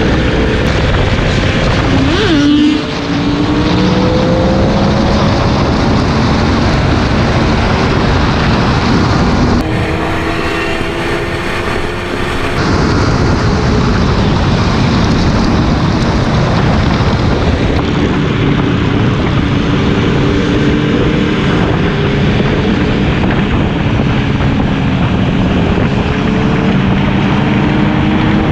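Sport motorcycle engine running under load with heavy wind noise on the microphone. The engine pitch climbs several times as it pulls through the gears, with a brief drop in level about three seconds in.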